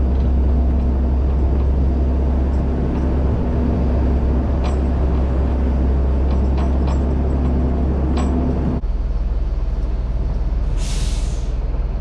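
A tow truck's engine running with a steady low rumble as it moves through a parking lot; the engine note drops abruptly about nine seconds in, and a short air-brake hiss follows about two seconds later.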